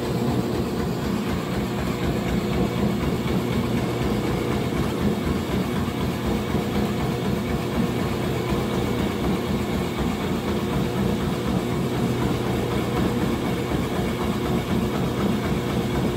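Electric shave ice machine running steadily, shaving a block of ice into fine snow.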